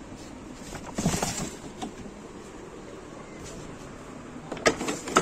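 Hollow plastic knocks and clicks from a plastic ride-on toy car being handled: a short cluster of knocks about a second in, then two sharp clicks near the end.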